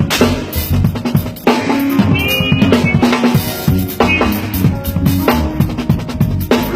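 Drum kit played in a groove of bass drum, snare and rimshots, with cymbal crashes several times, over band music with a bass line.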